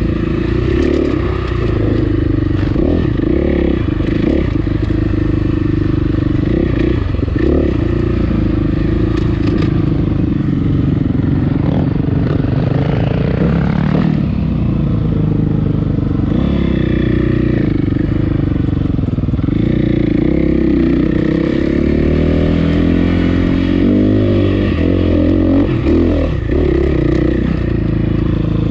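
Dirt bike engine running on a trail ride, its pitch rising and falling with the throttle, with a few brief knocks along the way.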